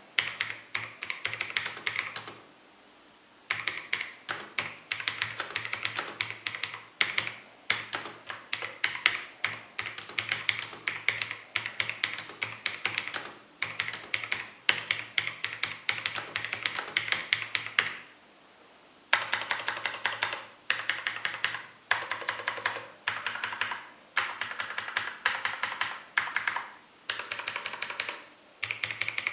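Continuous typing on a TVS Gold mechanical keyboard with Longhua Blue clicky switches and stock thin ABS keycaps: fast runs of sharp key clicks, broken by short pauses about two seconds in and again a little past halfway.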